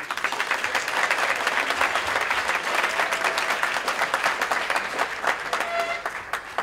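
Audience applauding: many people clapping densely and steadily, dying down near the end.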